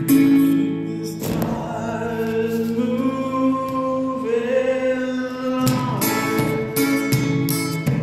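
Music on guitar: strummed chords near the start and again from about six seconds in, with long held notes that slide in pitch between them.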